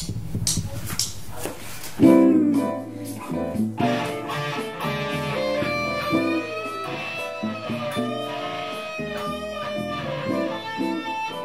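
Electric guitar played through an amplifier over a backing track. Sharp percussive strokes come first, a loud entry about two seconds in, then sustained notes with some bent, gliding pitches.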